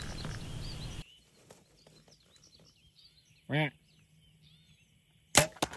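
Two sharp cracks about a quarter second apart near the end: a compound bow's shot and the arrow striking an axis deer buck. Before them comes one short animal call that rises then falls in pitch, with faint birds chirping.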